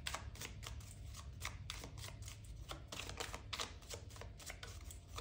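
A deck of tarot cards being shuffled and handled: soft, irregular flicks and clicks, several a second.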